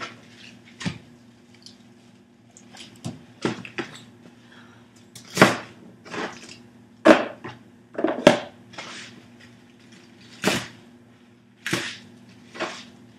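Chef's knife cutting through pechay (bok choy) stalks and knocking on a cutting board: a dozen or so sharp, irregular chops.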